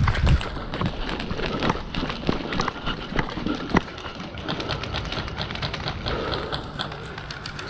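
A scatter of sharp, irregular clicks and taps, with a few heavy thumps in the first moment.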